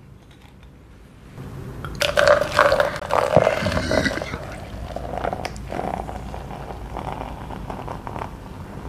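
Barbican peach-flavoured malt drink poured from a glass bottle into a plastic cup, starting about a second and a half in. It glugs unevenly from the bottle neck at first, then runs in a steadier pour with the foam fizzing up in the cup.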